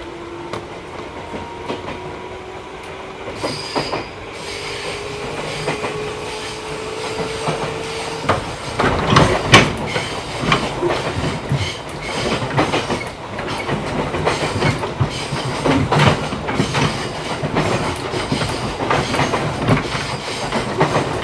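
Running sound of a 211 series electric train, heard inside the motor car: the DC traction motors whine in a tone that rises steadily in pitch as the train gathers speed. From about eight seconds in, the wheels clatter over rail joints in loud, irregular clicks.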